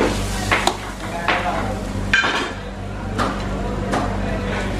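Metal ladle clanking and scraping in a steel wok as stir-fried food is scooped out onto a plate: several sharp knocks over a steady low hum.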